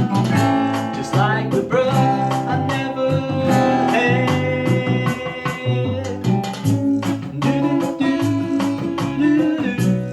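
Guitar played over a Latin-rhythm backing of bass and drums from a Trio Plus accompaniment pedal, as an instrumental passage of a song, with regular drum hits.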